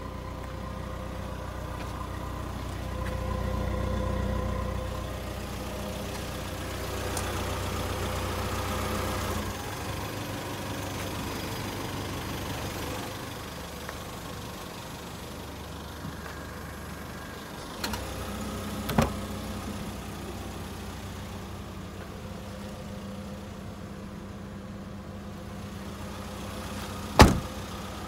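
Mazda Titan Dash truck's engine idling steadily, with two sharp clicks about two-thirds of the way through and a louder click near the end.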